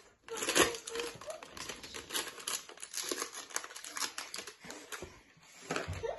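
Scissors snipping through a foil snack packet and the packet crinkling as it is handled and pulled open: a quick, irregular run of small clicks and rustles.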